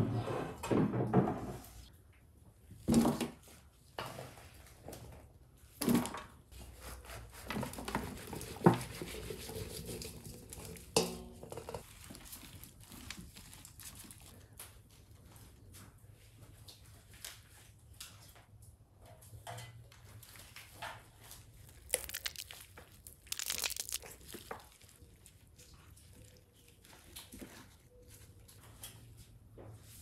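Food being handled in a large steel roasting pan: sharp metal knocks as the pan and a steel tray are set down and moved, and crinkling and rustling as vegetable pieces and a raw rabbit are placed by hands in rubber gloves. Several separate knocks fall in the first half, one near the middle the loudest, and the second half is softer rustling with a brief crisp crinkle.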